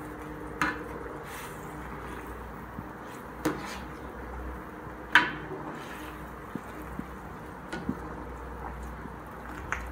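Metal slotted ladle knocking and scraping against a metal wok while noodles are scooped out of hot water: a few sharp clinks, the loudest about five seconds in, with smaller taps between, over a faint steady hum.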